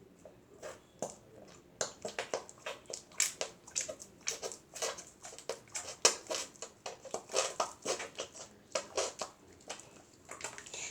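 Slime being squeezed and worked by hand: a rapid, irregular run of wet squelches and sticky clicks.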